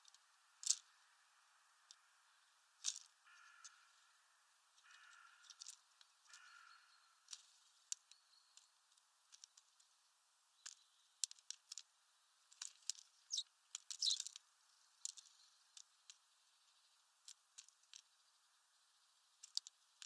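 Eurasian tree sparrows pecking at sunflower seeds on a feeder tray: faint, irregular sharp clicks and taps, a few louder in clusters near the middle.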